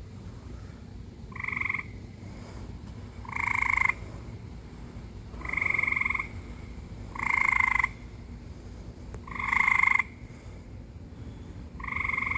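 A frog calling from the pool: six short calls, each about half a second long, repeating roughly every two seconds over a steady low background rumble.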